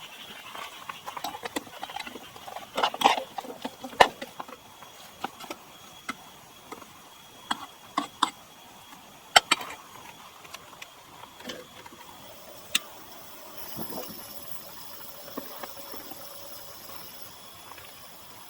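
Scattered sharp clicks and knocks of camp cookware and utensils being handled and set down, a few at a time, with a faint steady high hiss coming in about two-thirds of the way through.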